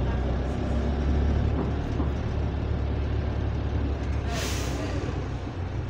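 Bus engine running with a steady low drone, heard from inside the saloon; the uploader reckons its exhaust is slightly burst. About four seconds in, a short sharp hiss of air from the air brakes, lasting under a second.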